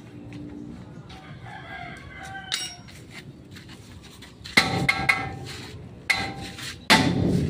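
A rooster crowing in two long calls, loud, in the second half. Before them come a few light clinks of hand tools on the truck's steel front axle parts.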